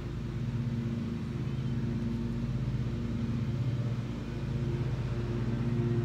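An engine running steadily at idle, a low even drone that holds the same pitch throughout.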